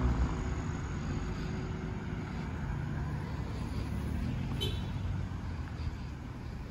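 Cars driving past on a multi-lane road: a steady rush of tyre and engine noise that eases slightly toward the end, with one brief high beep about four and a half seconds in.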